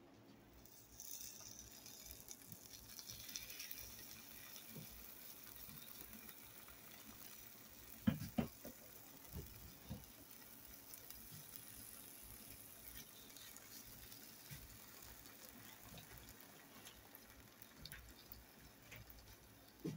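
Raw bacon strips faintly sizzling in a hot frying pan as they are laid in, with a couple of soft knocks about eight seconds in.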